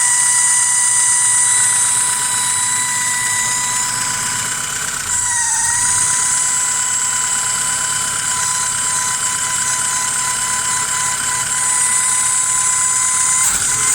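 Engine running with a steady high-pitched whistle from the carburettor over a hiss; the whistle dips briefly in pitch about five and a half seconds in. The owner does not know its cause.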